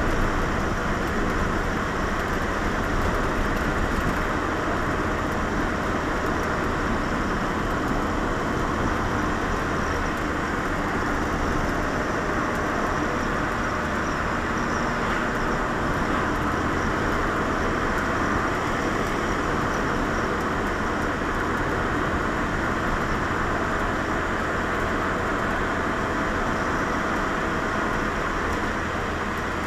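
Steady road, tyre and engine noise heard inside a Lotus Elise's cabin as it drives along at an even pace.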